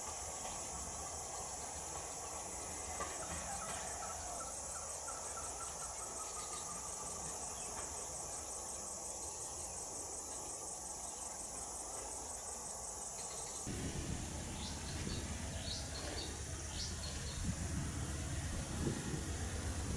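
Steady high-pitched chorus of crickets. About fourteen seconds in it gives way abruptly to the low rumble of approaching double-headed CC 205 diesel locomotives, growing louder, with a few short high squeaks.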